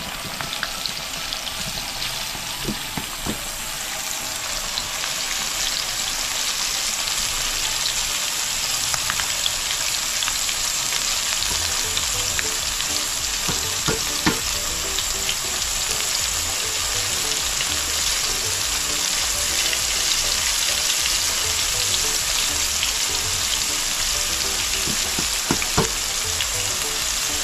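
Fish frying in hot oil: a steady sizzle with fine crackles and pops throughout, and a couple of sharp knocks, about halfway and near the end.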